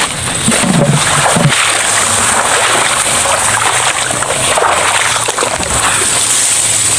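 Wading through shallow floodwater in tall grass: continuous splashing and sloshing of water with grass rustling.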